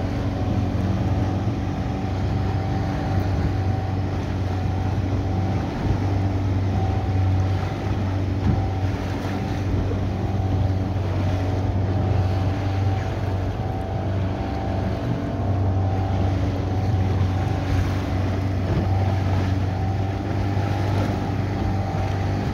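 Motor of a small open boat running steadily while the boat is under way, a constant low drone.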